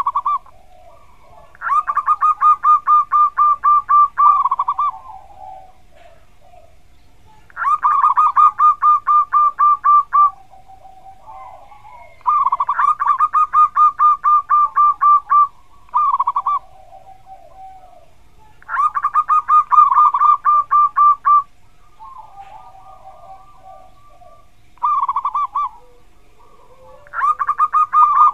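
Zebra dove singing its long 'kuk' song: repeated phrases of rapid staccato cooing notes, each phrase about two to three seconds long and coming every five or six seconds, with a few short phrases and softer, lower warbling between them.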